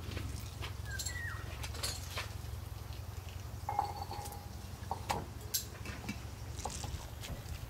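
Grated zucchini being squeezed by hand over an enamel bowl: irregular wet squelches and drips of juice. Birds chirp briefly now and then over a steady low hum.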